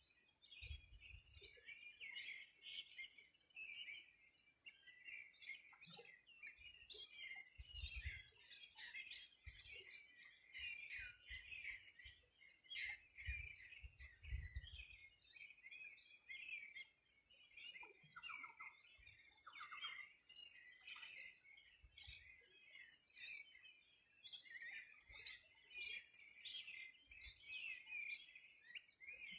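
A chorus of many small birds singing at once, a dense, continuous tangle of faint chirps and trills, with a few lower calls about two-thirds of the way through and brief low rumbles now and then.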